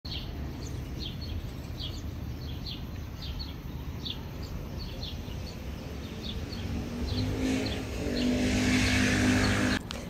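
A small bird chirps repeatedly, about two short chirps a second, over a low traffic rumble. In the last three seconds a passing motor vehicle's engine grows louder, then the sound cuts off abruptly just before the end.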